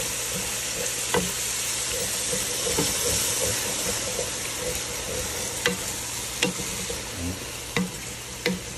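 Chicken broth sizzling as it deglazes a pan of dark roux, duck and chopped vegetables, with a wooden spoon stirring and scraping the bottom of the pan. The sizzle eases slightly toward the end, and the spoon knocks against the pan once about a second in and several times in the second half.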